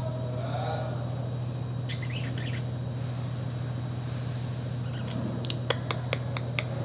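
Pet parrots chirping: a short burst of chirps about two seconds in, then a quick run of sharp, clicky chirps near the end, over a steady low hum.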